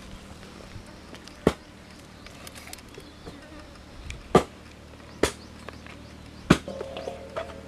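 A few sharp, separate knocks over a faint steady hum, with an insect starting to buzz near the end.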